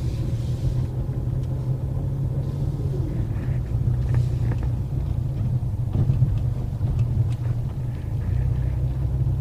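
Cabin noise of a Ford Mustang 2.3-litre turbo four being driven: a steady low drone of engine and road, with a few faint ticks about four, six and seven seconds in. The occupants judge such remaining noises to be mostly interior trim, with nothing heard from the chassis or the new Tein shock absorbers.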